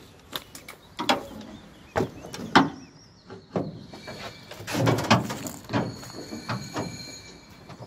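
Irregular metal clanks and knocks at the open firebox of a Kp4 steam locomotive as the newly lit fire is tended by hand, the loudest cluster about five seconds in.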